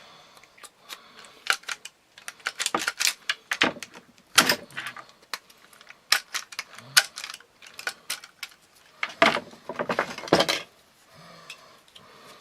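Hand pop-rivet gun being squeezed and handled, giving irregular metallic clicks and clattering, on a pop rivet that has set but whose mandrel has not pulled out and snapped off.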